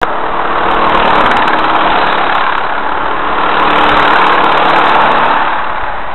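Small racing kart engines buzzing as the karts run down the straight past the trackside, loudest from about three and a half to five and a half seconds in as they come by.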